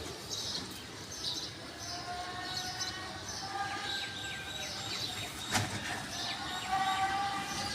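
Small birds chirping repeatedly over steady outdoor background noise, with a single sharp click about halfway through.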